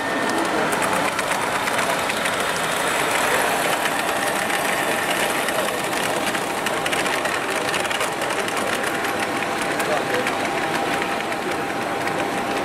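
Indistinct chatter of many people echoing in a large hall, over the running of H0-scale model trains on their track.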